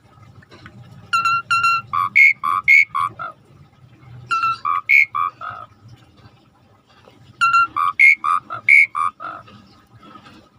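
Pied starling (jalak suren) singing: three repeated phrases a little over three seconds apart. Each phrase opens with two ringing whistled notes, then runs through quick alternating low and high notes.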